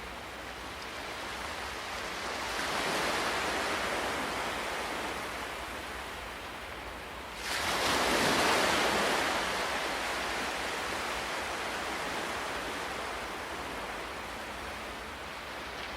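Ocean waves breaking on a shore. One wave swells and washes out a few seconds in; about halfway through a bigger wave breaks suddenly and louder, then slowly washes back.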